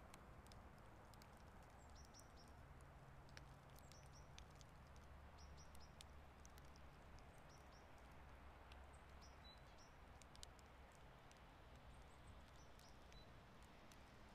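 Near-silent outdoor ambience while light snow falls: a faint steady low rumble with scattered tiny ticks and a few brief, high chirps of small birds.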